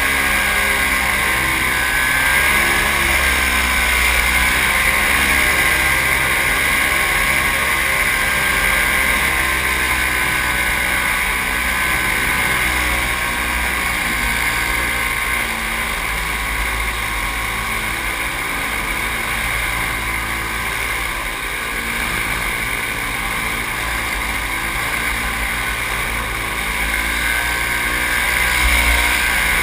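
Paramotor engine and propeller running steadily in flight, its pitch wavering slightly, with wind buffeting the microphone.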